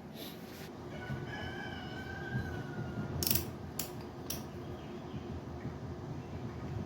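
A rooster crowing once, a call of about two seconds that falls slightly at its end. It is followed by three sharp clicks of something being handled.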